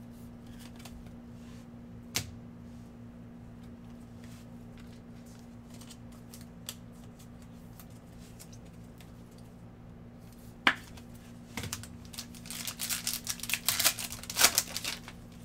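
Gloved hands handling trading cards with scattered light clicks and a few sharp ticks, then a Panini Prizm foil pack wrapper crinkling and tearing open in a dense flurry over the last few seconds. A steady low hum runs underneath.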